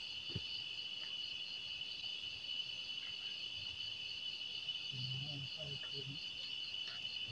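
Steady chorus of night insects: a continuous high trill with a second, rapidly pulsing high note above it.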